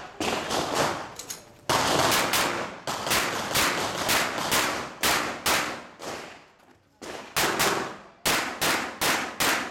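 Rapid pistol fire from a 9mm Glock 17 Open-division gun: more than a dozen shots, mostly in quick pairs, with a short ring after each and a pause of about a second after roughly six seconds.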